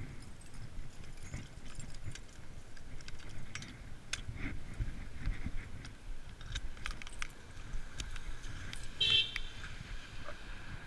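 Bicycle in motion: loose rattling and clicking over an uneven low rumble, with a short high-pitched squeal about nine seconds in.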